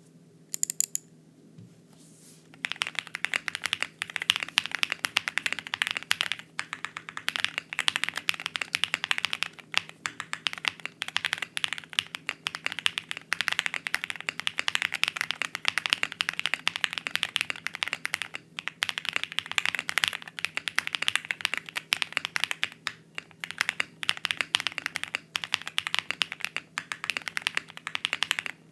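Fast, continuous typing on a custom mechanical keyboard with lubed and filmed Creamsicle switches, a POM plate, PE foam and plate and case foam, giving a creamy keystroke sound. A couple of single keystrokes come first, and steady typing starts about two and a half seconds in.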